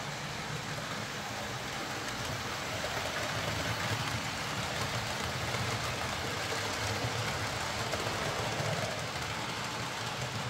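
Freshly serviced Hornby OO gauge Class 43 HST model running on track: its Ringfield motor whirring steadily and its wheels rolling on the rails, a little louder in the middle stretch.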